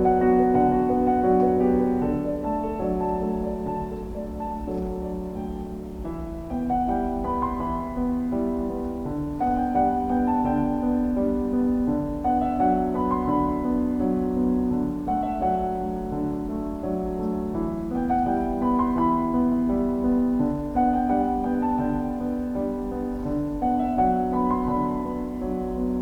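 Solo piano background music playing slow, sustained chords, with a melodic phrase coming back about every six seconds.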